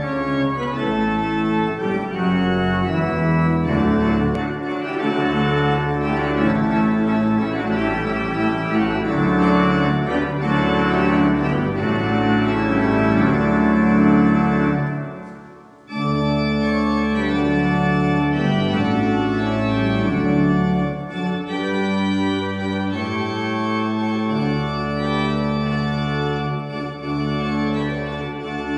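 Organ music playing held chords. The music fades out briefly about fifteen seconds in, then starts again.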